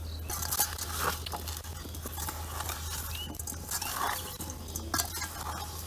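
Metal spoon stirring and tossing spice-coated raw potato wedges in a stainless steel bowl: irregular scraping and clinking of spoon against bowl.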